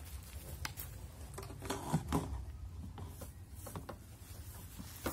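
Handling noise from a plastic funnel being picked up and pushed into a car's fuel filler neck: a few scattered clicks and short rubbing scrapes over a low steady rumble.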